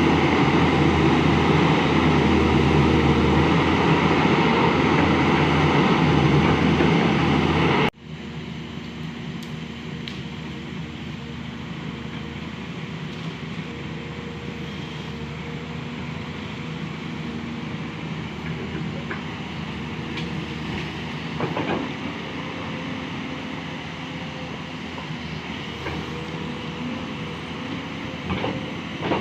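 Excavator diesel engine running, loud and close, then after about eight seconds an abrupt cut to a quieter, steady engine rumble with a few faint knocks.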